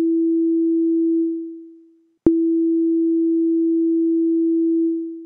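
Ableton Operator synthesizer playing one repeating note as a pure sine tone. Each note opens with a click, holds steady, then fades out over about a second when the note is let go, because the envelope's release is set to about 1.1 seconds. The first note dies away about a second and a half in, and a second note clicks on about two seconds in and starts fading near the end.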